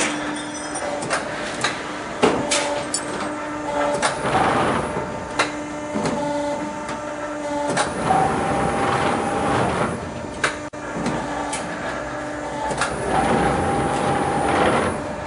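Automatic HVAC square-duct production line running: a steady machine hum that stops and starts, swells of rushing noise every few seconds, and several sharp knocks.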